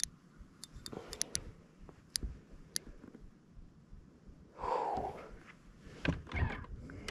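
A man breathing hard, with one loud breathy exhale about five seconds in, among scattered light clicks and a few low knocks of tackle being handled.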